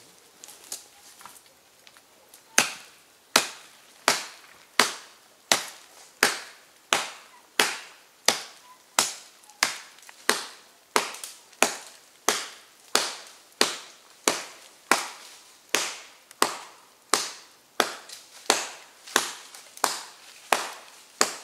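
Steady chopping into wood with a hand-held blade: sharp, evenly spaced strikes about one every 0.7 seconds, starting a couple of seconds in after a few lighter taps.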